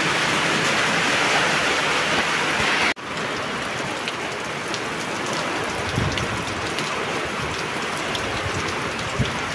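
Heavy rain pouring down, a steady hiss. About three seconds in, the sound cuts abruptly to a softer patter of drops falling on wet concrete and puddles.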